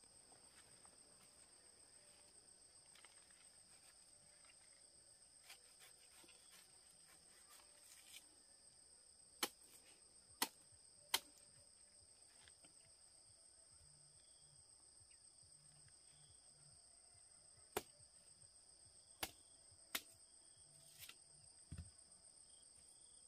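Steady, faint high-pitched insect chirring, with a scattering of sharp clicks or knocks, the loudest three close together about ten seconds in.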